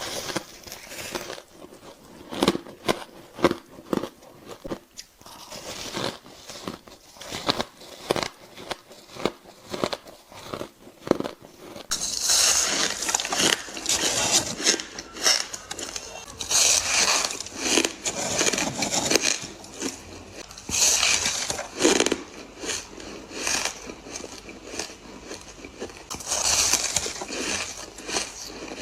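Close-miked biting and chewing of ice, a quick run of sharp crunches. About twelve seconds in, the crunching turns denser and hissier, coming in louder bouts of bites.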